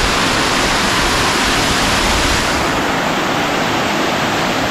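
Mountain stream rushing over granite rock: a steady water noise. It turns slightly duller a little under three seconds in.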